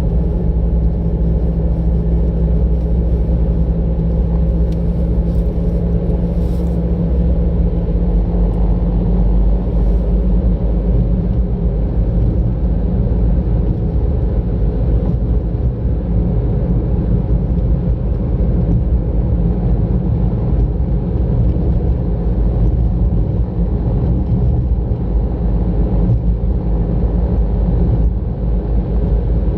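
A car driving, heard from on board: a steady low rumble of engine and tyre road noise. A steady engine hum runs through the first eight seconds or so, then gives way to a rougher, noisier road rumble.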